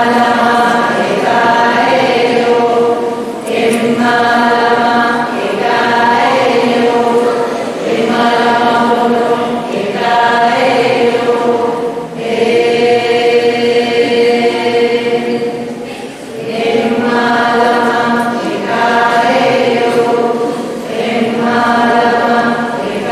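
Choir singing a slow, chant-like melody in unison, in held phrases of about two seconds with brief pauses between them and one longer phrase near the middle.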